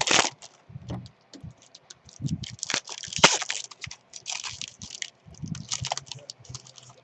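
Trading card packs and cards being handled: irregular crinkling and rustling of wrappers and cards, coming in short clusters with brief gaps.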